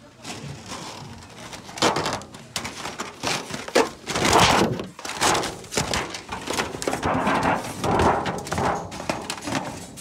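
Handling noise from rummaging among goods on cramped store shelves: an irregular run of thunks, knocks and rustling, loud and close to the microphone.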